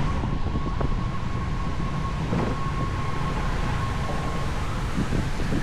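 Wind rumbling over the microphone on a moving Honda Vario 160 scooter, with a thin steady whine that fades out about four and a half seconds in.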